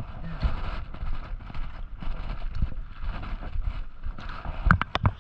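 Wind buffeting the microphone over water lapping around wading legs in shallow sea, with a few sharp knocks close together near the end.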